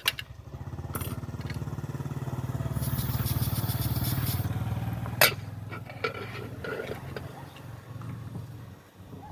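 A motor vehicle engine running, growing louder and then fading as it passes. There is a sharp knock about five seconds in.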